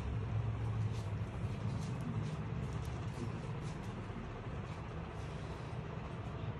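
Steady low background rumble with faint scattered clicks over it.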